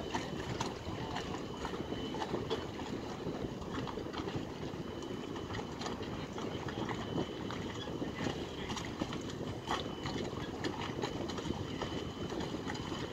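Steady low rumble of harbour background noise, with scattered light knocks and clicks from work on the dock.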